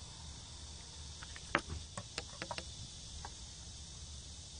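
Metal fishing pliers clicking and ticking against a hook and lure as they work the hook free from a small bass's mouth: a quick cluster of sharp clicks in the middle, the first one loudest, over a steady high background hiss.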